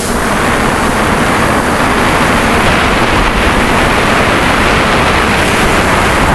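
Onboard audio of a DJI F550 hexacopter in flight: a loud, steady rush of propeller wash and wind over the GoPro's microphone, which buries the steady hum of the motors.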